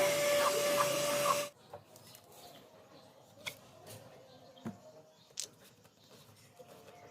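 Yearwin handheld wet-and-dry vacuum cleaner running with a steady high whine, cut off suddenly about one and a half seconds in. After that come a few light clicks and knocks of handling.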